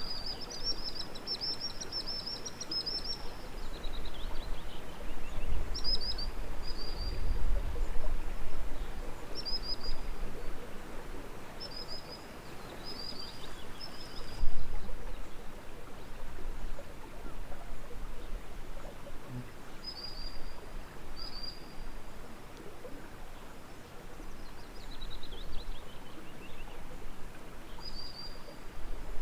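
Songbirds singing over a steady outdoor hiss: a warbling phrase at the start, then short high whistled notes every second or two, and a falling trill twice. Low rumbles come and go underneath.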